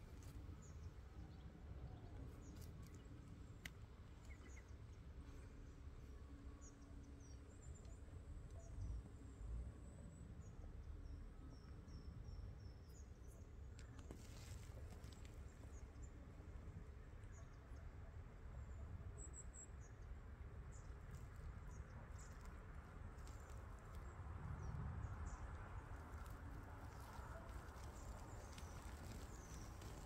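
Faint woodland ambience: a low rumble of wind on the microphone, with faint, short, high bird chirps that glide downward, coming in scattered runs.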